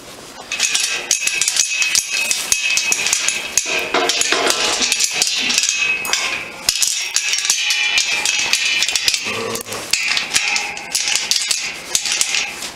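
Steel chain latch jangling and clinking against a metal livestock gate, with scattered metallic clanks, as the gate is worked by hand.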